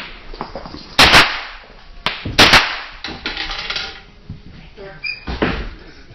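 Gunshots on a shooting range: two quick pairs of shots, about a second and about two and a half seconds in, then a fainter shot about five seconds in, each followed by a short ringing echo.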